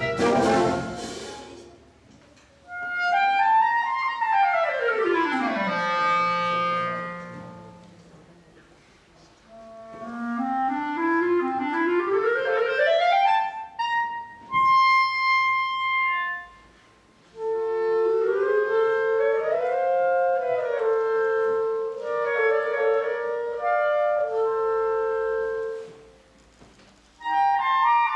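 Wind band finishing a loud chord, then unaccompanied solo clarinet playing a cadenza: a fast run falling to a low held note, a long climb up to a held high note, then shorter phrases with pauses between them. The band comes back in near the end.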